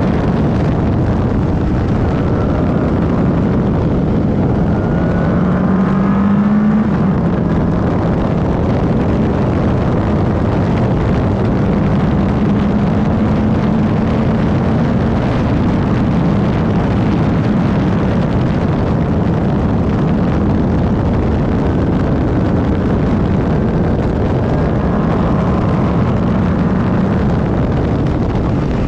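Van Diemen RF01 single-seater racing car engine running hard at racing speed. The revs climb and fall with the throttle and gear changes: one rise cuts off sharply about seven seconds in. A steady rush of wind and tyre noise runs beneath.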